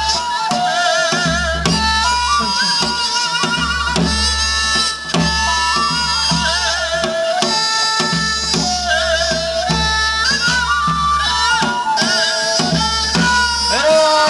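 Korean traditional folk music for a mask dance: a wavering melody line over regular drum strokes.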